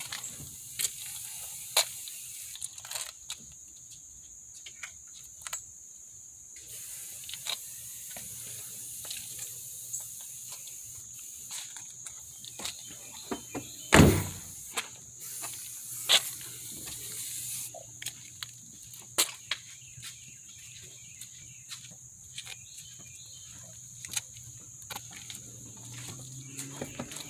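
Steady high-pitched insect chorus, with scattered clicks and knocks from car doors being opened and handled, and one loud thump about halfway through.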